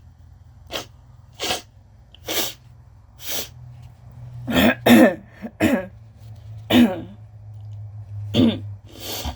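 A woman's allergy coughing: about ten short coughs, spaced about a second apart at first, then a tight run of harsher, voiced coughs around halfway through.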